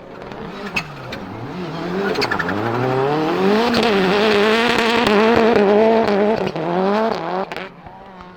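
Rally car's turbocharged 2.0-litre four-cylinder Lancia Delta Integrale engine revving up and down through gear changes, building to a loud peak in the middle and easing off near the end, with a few sharp cracks.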